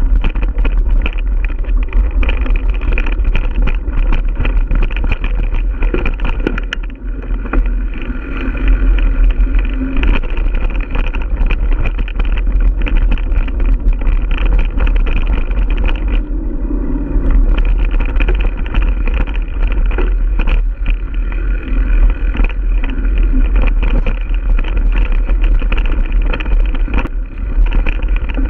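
Giant Stance 1 mountain bike ridden over a dirt singletrack, heard from a handlebar-mounted camera: a steady loud rumble of tyre and rushing-air noise, with constant irregular rattles and knocks as the front wheel and fork take roots and rocks.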